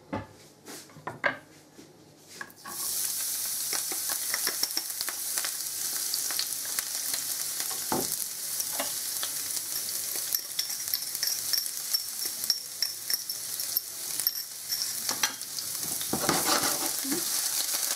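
Chopped garlic dropped into hot oil in a non-stick frying pan, sizzling steadily with fine crackles from about three seconds in. A few light clicks of handling come before the sizzle starts.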